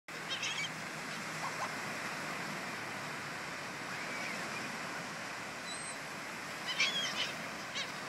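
Gulls calling in short squawks over a steady wash of surf, the loudest cluster of calls about seven seconds in.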